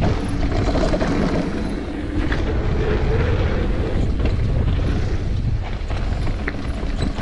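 Downhill mountain bike descending at speed: tyre roll and rattle of the bike over the trail under steady wind noise on the microphone, with a few sharp knocks from bumps.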